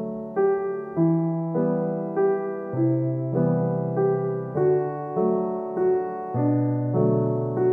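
Background piano music: a gentle tune of struck notes, a new note or chord about every half second, each one fading before the next.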